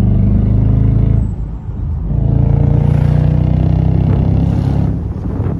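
Mercedes-Benz SL55 AMG's supercharged V8 exhaust, loud under hard acceleration, heard from the open-top cabin. Its note drops briefly about a second and a half in, pulls loud again, then eases off near the end. The exhaust has its second catalytic converters and resonators removed, with the original AMG mufflers reinstalled.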